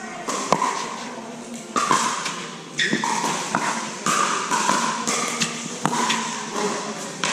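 Pickleball rally: paddles striking a hard plastic pickleball, a string of sharp, irregularly spaced pocks, each with a short hollow ring, echoing in a large hall.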